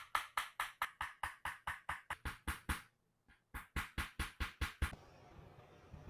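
Rapid, evenly spaced knocks, about five a second, in two runs with a short break about three seconds in, ending just before five seconds; then faint room tone.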